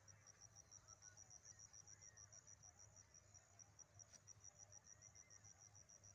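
Faint insect chirping: a high, even pulse repeating about six times a second, with a faint low hum beneath.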